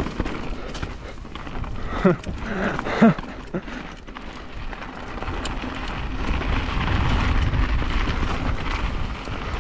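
Mountain bike tyres rolling over loose rock and gravel, with wind rushing on the microphone, growing louder from about halfway through. Near the start come two brief pitched sounds about a second apart.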